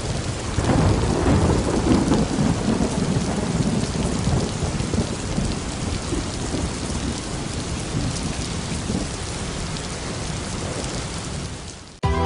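Thunderstorm: steady heavy rain with thunder rumbling, loudest in the first three seconds and slowly dying away until it fades out just before music starts at the very end.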